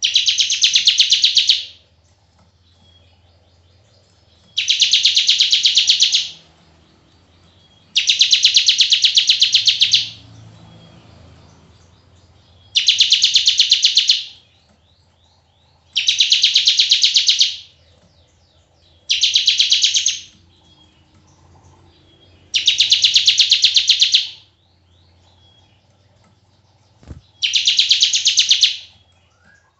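Bar-winged prinia (ciblek) giving its long 'bren' call: a fast, buzzy rattling trill in bursts of one and a half to two seconds, eight times over, with short pauses between.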